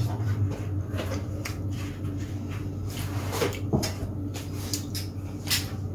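A few light clicks and knocks of handling over a steady low hum.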